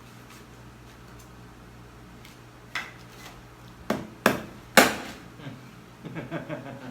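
Cleaver chopping pork on a wooden chopping block: a few hard, sharp chops in the middle, the loudest two about half a second apart, then lighter knocks and clatter near the end.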